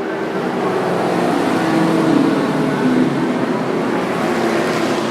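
Vintage Indy race car engines running at speed on track, their pitch rising and falling as the cars pass.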